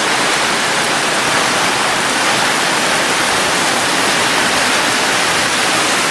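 Heavy tropical rain pouring down: a loud, steady hiss of a sudden downpour.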